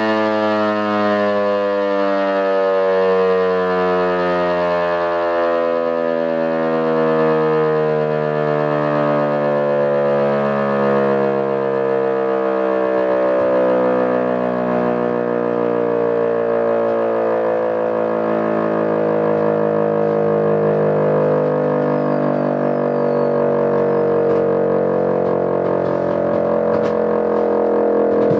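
E57 electromechanical siren sounding the fire alert as one long unbroken tone, its pitch slowly drifting downward, with a wavering, beating quality.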